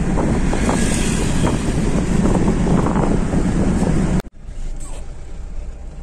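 Mahindra Bolero driving at speed, heard from inside the cabin: loud, even engine, tyre and wind noise. About four seconds in it cuts off sharply and is replaced by a quieter, steady engine sound.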